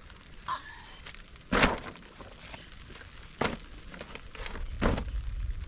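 Three sharp knocks or thuds, the first the loudest, spaced about one and a half to two seconds apart, over a low steady rumble.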